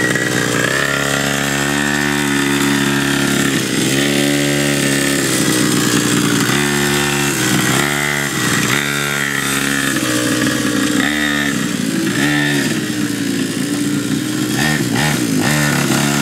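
Small two-stroke engine of a Nitro Cobra mini ATV running while ridden, its pitch dropping and rising again several times as the throttle is eased off and opened.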